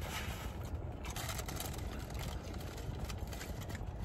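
Close-up chewing of French fries and crinkling of a paper food wrapper, many short crackles for the first three seconds or so, over a steady low rumble inside a car.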